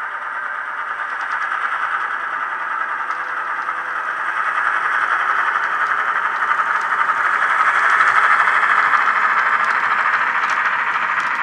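Austrains X-46 model locomotive's DCC sound decoder playing a diesel engine running, through its small onboard speaker. It grows louder as the locomotive passes close by, loudest about two-thirds of the way in, then eases a little.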